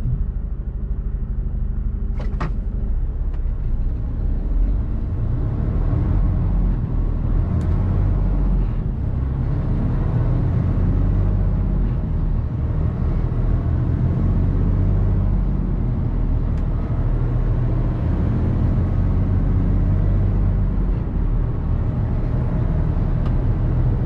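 Mercedes Actros truck's diesel engine and road noise heard from inside the cab, a steady engine note at first, with a short sharp click a couple of seconds in. From about five seconds in the low rumble grows denser and a little louder.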